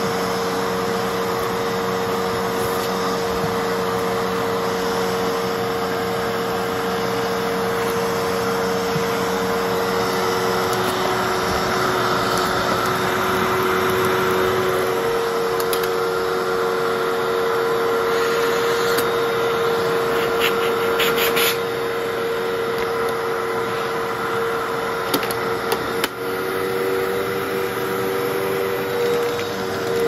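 Fantom Fury upright vacuum cleaner running steadily, a constant motor hum with a high steady tone, as suction is drawn through its hose and wand along the carpet. A few brief clicks and rattles come about two-thirds of the way in.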